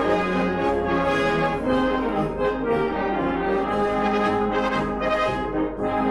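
Brass band music: several brass instruments playing held notes in full chords.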